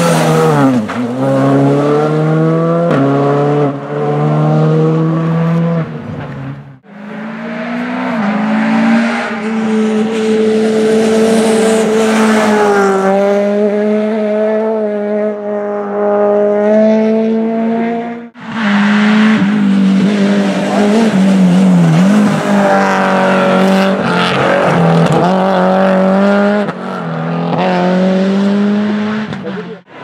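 Rally car engines at high revs, heard in three separate passes split by abrupt cuts. First a Skoda Fabia R5 rises in pitch through a quick run of upshifts. Then a Peugeot 208 rally car holds high, wavering revs through a corner, followed by another car revving up and lifting off, its pitch dropping and climbing again.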